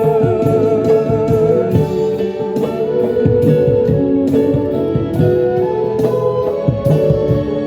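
Instrumental music led by a plucked string instrument, with steady held tones under many short plucked notes.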